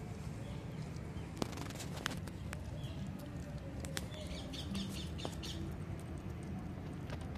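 Outdoor ambience: a steady low rumble, several sharp clicks, and small birds chirping about halfway through.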